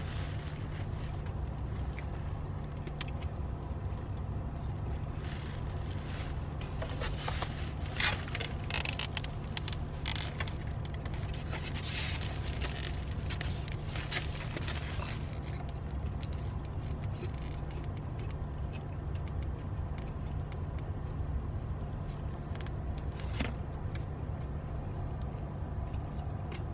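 Steady low hum of a car running, heard inside its cabin, with scattered rustling and scraping clicks that are busiest from about eight to fifteen seconds in.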